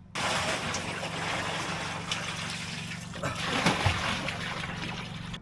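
Water running and trickling steadily into a container through a filter, with a low steady hum underneath.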